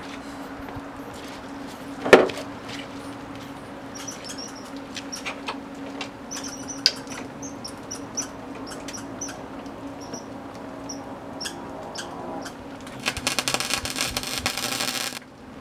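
MIG welder laying a short weld: about two seconds of dense arc crackle near the end, cut off suddenly. Before it there is a steady hum with scattered small clicks and one sharp knock about two seconds in. The welder's wire feed is acting up, the spool being nearly used up.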